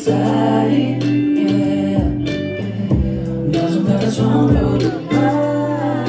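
A man singing live into a handheld microphone over amplified music with held low notes. His voice comes in about half a second in and again near the end.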